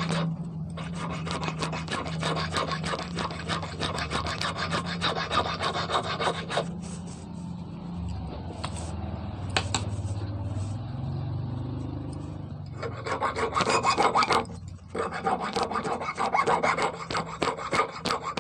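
Saw file rasping back and forth across a 3 mm brass rod in quick short strokes. The filing stops for about six seconds in the middle and starts again about 13 seconds in.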